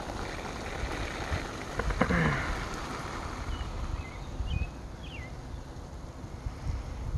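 Steady hiss of a garden sprinkler spraying, a little brighter in the first two seconds, with a few faint bird chirps in the middle.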